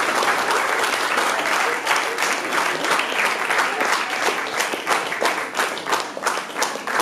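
Audience applauding: a dense wash of clapping that thins after about two seconds into separate, distinct claps.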